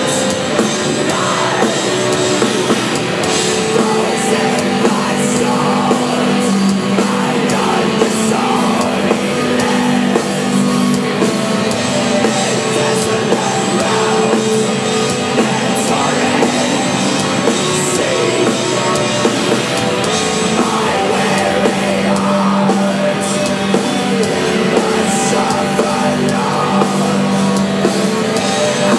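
Black metal band playing live at a steady loud level: distorted electric guitars and a drum kit, with vocals over them.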